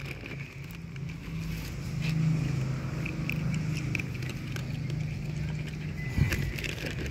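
A steady low engine hum that grows louder about two seconds in, with a few small clicks and a short thump near the end.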